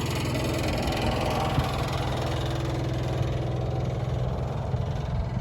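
Ice cream truck's engine idling steadily.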